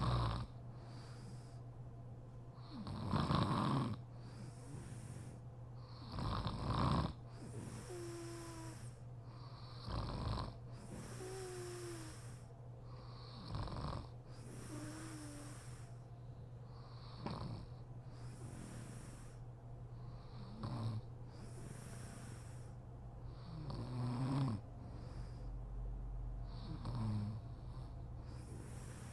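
A sleeping woman snoring: a loud snore about every three and a half seconds, with softer breathy exhales between.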